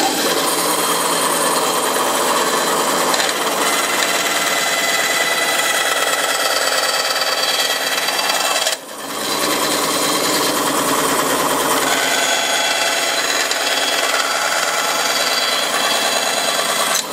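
Bandsaw running and cutting a maple-and-ebony banjo bridge blank, a loud steady sawing noise that dips sharply for a moment about halfway through and then carries on.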